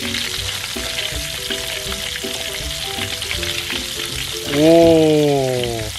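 Breaded chicken thighs deep-frying in hot oil in a pan, a steady sizzle. About four and a half seconds in, a louder drawn-out pitched sound slides slowly down in pitch for over a second.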